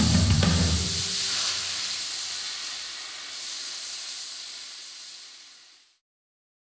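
Plasma cutter hissing steadily as it cuts old weld off a steel armour hull plate, fading out to silence about six seconds in.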